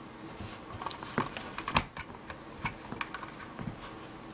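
Scattered light plastic clicks and knocks at irregular intervals: a power strip's Chinese three-pin plug and adapter being handled and plugged in.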